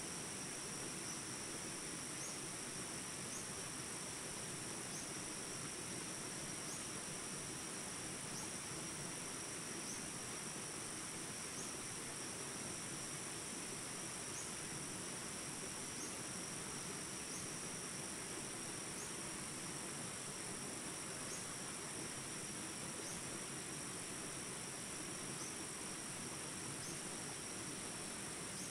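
A chorus of insects in the fields keeps up a continuous high-pitched trill, with a short chirp repeating about every second and a half. Underneath is a steady low background rumble.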